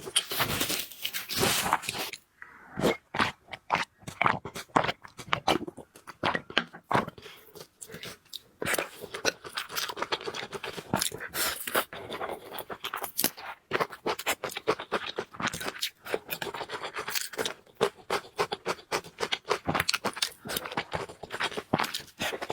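A person eating noodles and fried food: dense, irregular chewing and crunching clicks, several a second, with scraping sounds in between.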